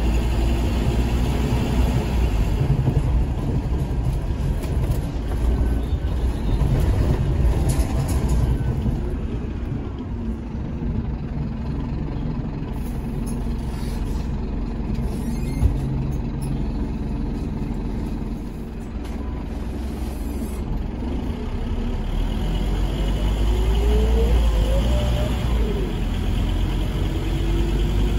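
Inside a Scania K230UB Omnilink single-deck bus underway: the rough-sounding engine runs with heavy low rumble, eases off around the middle, then pulls harder in the last third while the loud ZF Ecomat automatic gearbox gives a rising whine. A single short knock sounds about halfway through.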